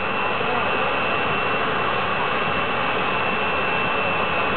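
Turbine engine of a jet-turbine drag car running steadily: an even rushing roar with a high whine held on one pitch.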